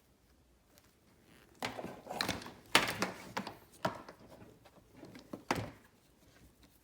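Unpacking noises: rustling packaging and a run of knocks and thunks as parts of a tuning-module kit are handled and set down, starting about a second and a half in, the loudest knocks a little under three seconds in and near the end.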